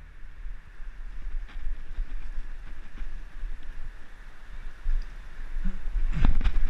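Wind buffeting a head-mounted action camera's microphone as the wearer moves across a rooftop, a rough fluctuating rumble. A few heavier thumps near the end are footfalls on the roof.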